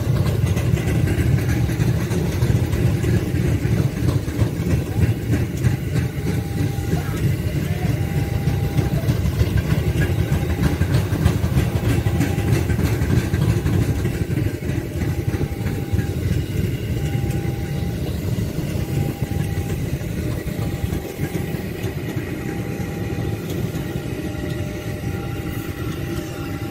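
Ex-JR 205 series electric commuter train running past close by: a steady rumble of wheels on the rails that eases slightly near the end. A short warning tone repeats about once a second over it.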